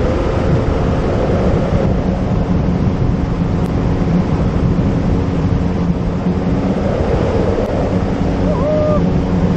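Outboard motor of a small speedboat running steadily at planing speed, a constant drone under the rush of water off the hull, with wind buffeting the microphone.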